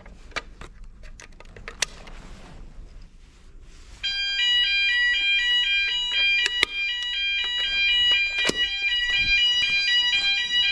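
Electronic fire alarm sounder going off during a weekly test. It starts suddenly about four seconds in, after a few clicks and knocks, and sounds a fast alternating two-tone pattern, switching about four times a second.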